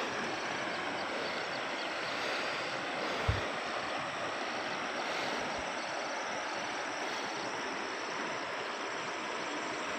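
Floodwater from an overflowing stream rushing steadily, a continuous 'surr' sound, with a brief low thump about three seconds in.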